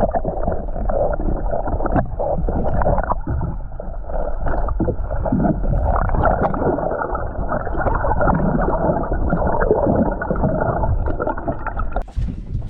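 Muffled sloshing and gurgling of water around a submerged camera, with a few dull knocks, everything above a low pitch cut away.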